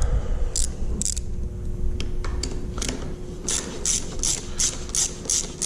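Hand socket ratchet clicking as it is worked to tighten a handguard mount bolt: a few scattered clicks, then a steady run of about three to four clicks a second.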